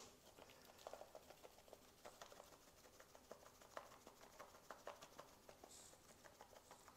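Near silence: room tone with faint, scattered small clicks.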